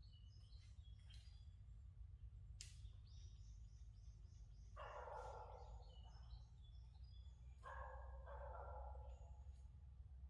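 Faint forest ambience: small birds chirping, with a quick run of high notes about three seconds in. Two louder, rougher animal calls of about a second each come about five and eight seconds in, over a steady low rumble.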